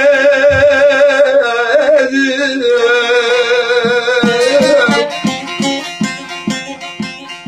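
Turkish folk music: a held, wavering melody line over accompaniment, giving way about halfway through to spaced plucked string notes that fade away near the end.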